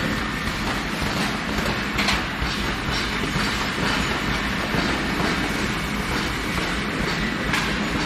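Steady rumbling clatter of running production machinery: a belt-driven rotating drum and a spiral roller conveyor carrying steel balls, with a sharper metallic clank about two seconds in and another near the end.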